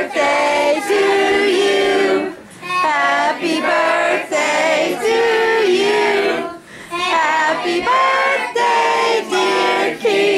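Singing: a song in short phrases with held notes, pausing briefly about two and a half seconds in and again near seven seconds.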